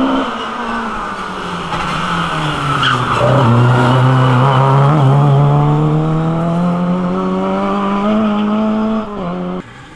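Lada rally car's four-cylinder engine at high revs passing close by. Its pitch drops as it goes past about three seconds in, then climbs steadily as it accelerates away. The sound dips briefly near the end and then cuts off suddenly.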